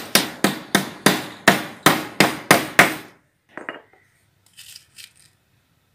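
A claw hammer drives small 3/4-inch nails into a wooden frame to pin welded wire mesh. About ten quick blows come at roughly three a second and stop about three seconds in, followed by a few faint light clinks.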